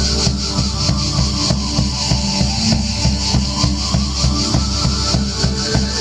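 Instrumental music with a steady, evenly repeating drum beat, played as accompaniment for a guided dance.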